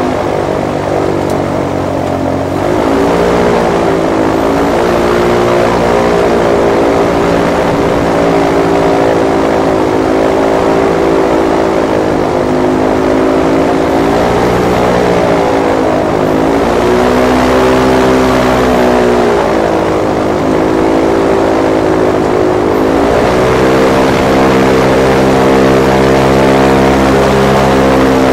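Airboat engine and propeller running loud and close, heard from on board. The engine pitch dips and climbs back several times as the throttle is eased and opened again.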